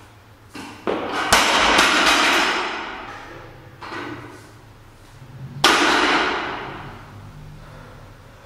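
Loaded barbell with bumper plates knocking down on the gym floor twice, about four seconds apart. Each knock is followed by the plates and bar rattling and fading over a second or two, with softer knocks in between.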